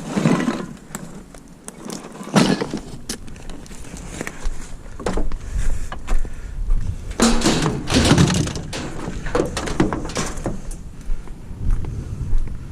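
Scrap being handled and loaded: irregular clanks and knocks with bursts of scraping and rustling, the longest and loudest about seven to eight and a half seconds in.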